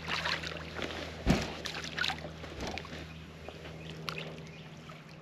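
A hooked bass splashing at the surface beside the boat as it is played in, with one sharp thump about a second in. A steady low hum runs underneath.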